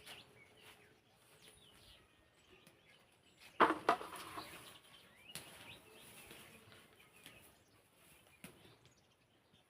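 Faint birds chirping now and then, with one brief, sharp crackle about three and a half seconds in, the loudest sound.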